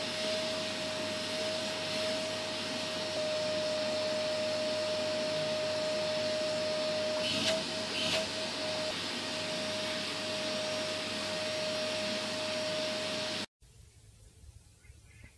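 Vacuum cleaner running steadily with a constant whine, its hose nozzle drawn over a lying cat's fur. The sound wavers briefly twice about halfway and cuts off suddenly near the end.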